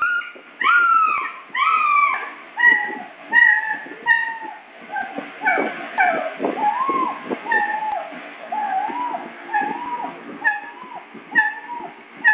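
Doberman puppy yelping and crying without pause, a quick string of short high cries about two a second, in pain as its tail is docked.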